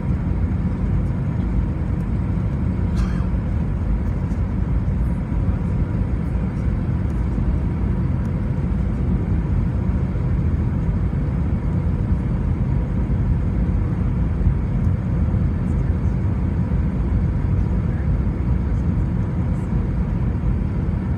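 Steady engine and airflow noise in the cabin of an Airbus A320 on final approach, a constant deep rush with no touchdown thump.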